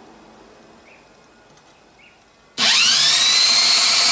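An 1800 rpm electric drill is switched on about two and a half seconds in. Its whine rises quickly to a steady high pitch as it spins a car alternator's shaft, with the alternator not yet excited.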